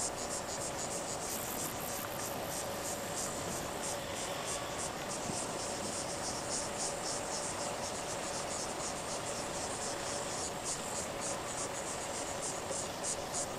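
Insects chirping in rapid, even pulses, about four a second, high-pitched, over a steady faint hum.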